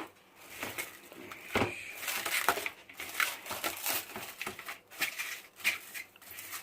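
Plastic cling wrap crinkling and rustling in irregular bursts as it is pulled, stretched and pressed down over a container.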